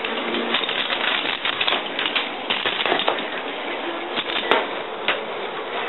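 Homemade K'nex lawn mower with a small electric motor, its spinning blade chopping grass: a dense, irregular crackle of clicks and ticks over a steady noise.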